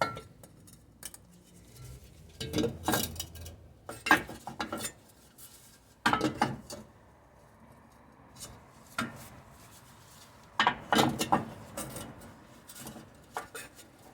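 Metal tools and parts clinking and clanking in scattered bursts a few seconds apart, from work on a new wheel hub bearing assembly.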